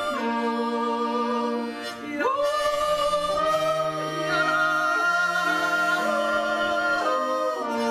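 Two women singing a folk song together in harmony, with long held notes and a brief break about two seconds in before the next phrase, over soft instrumental accompaniment.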